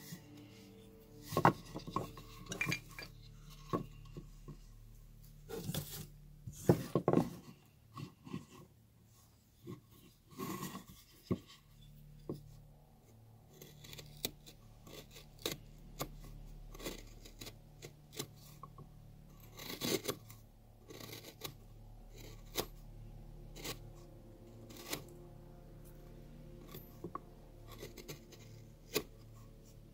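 Carving gouge cutting and scraping cottonwood bark by hand in short, irregular strokes, a few of them sharper and louder, about 1.5, 7 and 20 seconds in.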